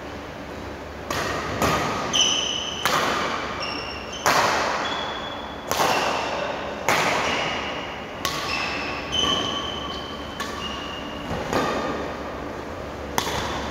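Badminton rackets striking the shuttlecock in a rally, about a dozen sharp hits at roughly one a second, each ringing on in a large hall. Short high squeaks of court shoes on the floor come between the hits.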